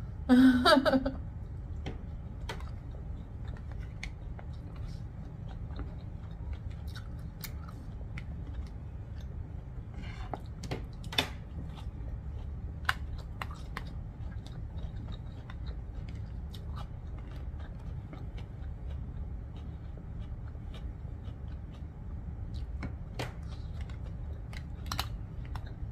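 A person eating noodles with a fork from a plastic takeout bowl: scattered soft clicks and scrapes of the fork against the bowl and chewing, over a steady low hum. A brief voiced sound comes about half a second in.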